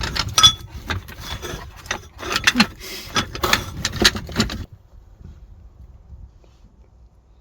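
Ceramic wall tiles clicking and knocking against each other as they are handled, with a rapid run of sharp clinks for about four and a half seconds, then quiet.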